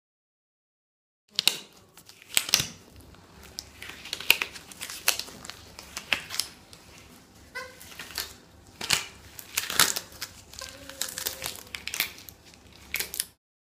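Latex exam gloves rubbed, stretched and slapped close to the microphone: crinkling with many sharp snaps and a few short squeaks of rubbed latex. It starts about a second in and cuts off near the end.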